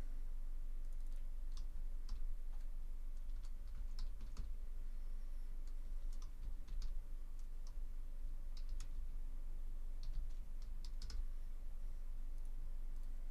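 Scattered computer keyboard keystrokes and clicks, a few at a time with pauses between, over a steady low hum.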